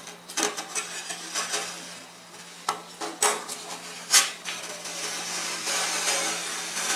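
Metal spatulas clacking and scraping on the steel cold plate of a rolled ice cream station: several sharp strikes in the first half, then steadier scraping over the second half.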